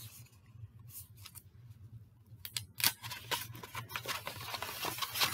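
Paper scroll being unrolled by hand: crinkling and rustling with small sharp crackles, sparse at first and busier from about halfway in.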